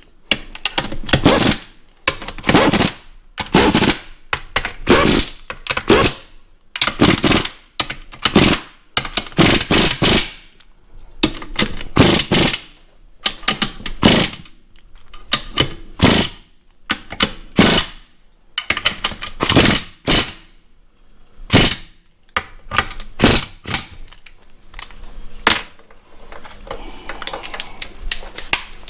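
Impact wrench running down the bolts that hold the halves of a Jeep 231 transfer case together, in about twenty short rattling bursts, roughly one a second.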